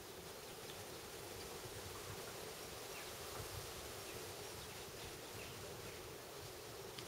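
Steady buzzing of insects over the gentle rippling of a shallow stream.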